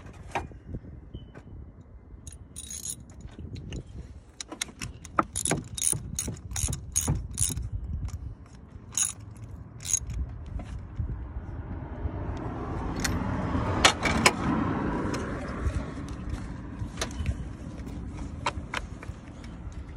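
Metal hand tool clicking and clinking on the coil pack and its bolts on top of a Saab 9-3 engine during spark plug work. A quick run of sharp clicks comes a few a second in the first half, then scattered clicks, with a swell of broader noise rising and falling around the middle.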